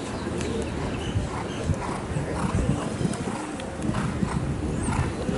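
Horse cantering over sand arena footing: muffled hoofbeats in an uneven rhythm, about two a second, over a steady low rumble.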